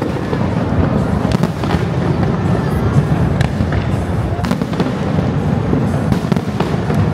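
Aerial fireworks bursting in rapid succession: a dense, unbroken run of bangs and crackles over a heavy low rumble.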